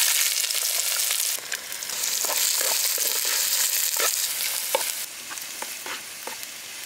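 Chopped onions sizzling as they hit hot ghee in a clay pot, then frying while a wooden spatula stirs and taps through them. The sizzle is loudest in the first second or so and softer near the end.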